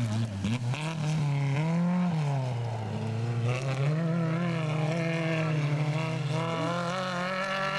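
Rally car engine running hard, its pitch rising and then falling back about two seconds in, then holding steady and climbing slightly.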